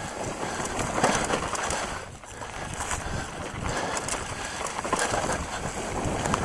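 Mountain bike descending a rough dirt and rock trail: tyres crunching over the ground and the bike rattling and knocking, under wind rushing over the camera microphone. The noise dips briefly about two seconds in.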